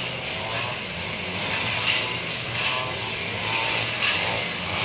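Brush cutter (motorized grass trimmer) engine running at a steady pitch, a continuous drone with hiss.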